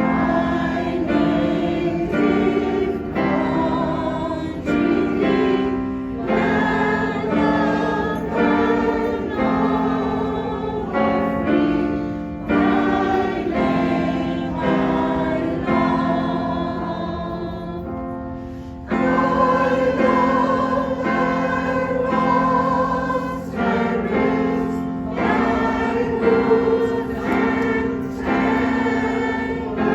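Choir singing a slow, hymn-like song in held chords, with a short break about 19 seconds in before the next phrase starts.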